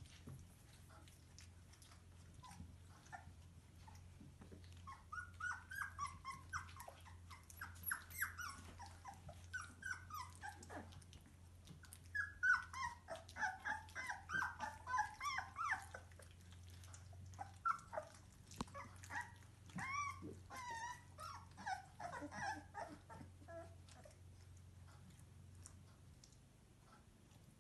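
Bernese Mountain Dog puppies whining, in short calls that bend up and down and come in bunches from about five seconds in until near the end, over a steady low hum.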